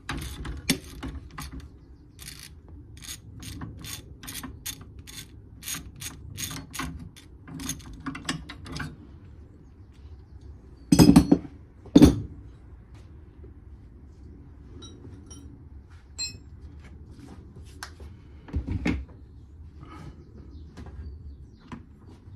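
Hand ratchet clicking in quick repeated strokes on suspension work, then two loud metallic knocks about a second apart, then a few scattered light clicks and a knock.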